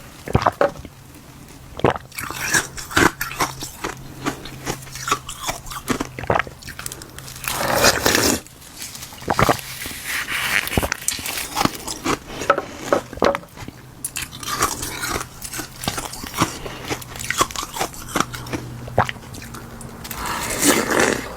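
Ice frozen from black goji berry water being bitten and chewed, with a close, dense run of sharp, irregular cracks and crunches. There are louder clusters of crunching about eight seconds in and again near the end.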